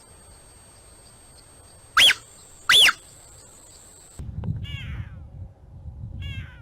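Big cat giving two short, high chirp calls about a second apart, each rising and falling in pitch. About two-thirds of the way in, the sound cuts to a low rumbling background with a few fainter chirps.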